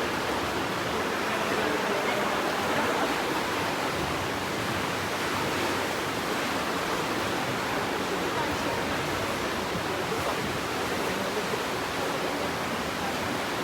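Aare river water rushing through its gorge: a steady, even whitewater rush that holds at one level throughout.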